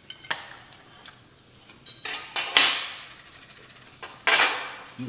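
Knife and fork clinking and scraping on dinner plates, with two louder rasping bursts, the first about two seconds in and the second just after four seconds.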